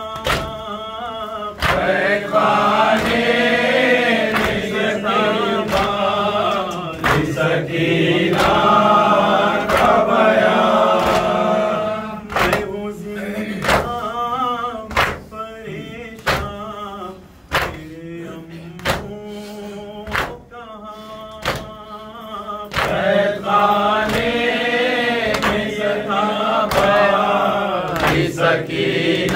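A man chanting an Urdu noha lament, joined by a group of men's voices, over rhythmic matam: open-hand slaps on the chest, about one a second.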